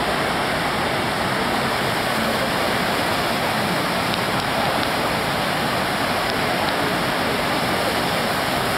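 Steady rush of water from a FlowRider sheet-wave surf machine, its pumps driving a thin, fast sheet of water up the padded slope.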